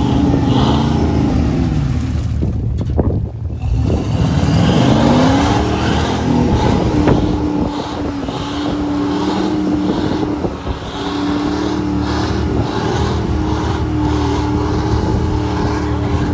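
Chevrolet Blazer's engine revving up and down with its wheels spinning through deep mud, then held at steady high revs from about halfway in while mud flies off the tyres.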